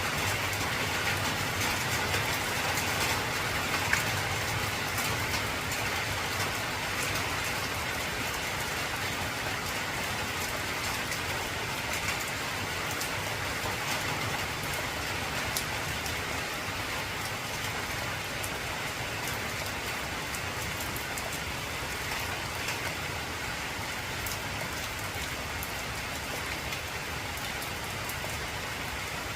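Heavy rain falling on an old corrugated zinc roof: a steady hiss laced with many sharp ticks of drops striking the metal, easing very slightly over the stretch.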